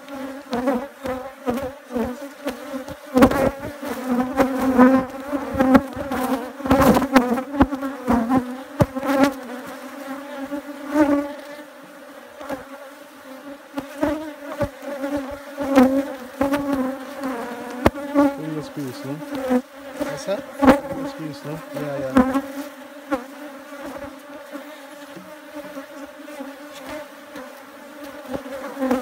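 Honey bees buzzing around an opened hive, a steady hum of many bees, with several sharp knocks and clicks over it.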